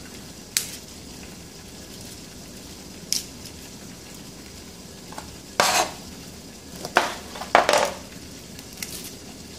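Raw broccoli florets being snapped and torn apart by hand: a handful of short crisp cracks and rustles as the stems break, the loudest bunched in the second half.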